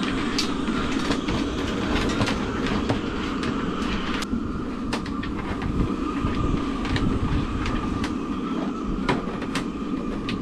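Electrical cable being pulled through a boat's heads locker, with many irregular clicks and rattles as it drags against the fittings, over a steady low hum and a thin whine.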